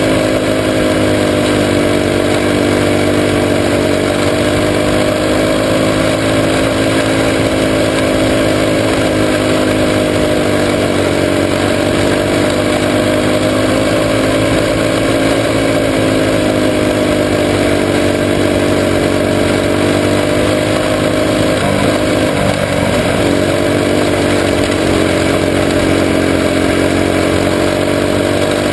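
Jr sprint car engine running hard at racing speed, heard from an onboard camera on the car, its pitch swaying gently up and down as the throttle is worked through the turns.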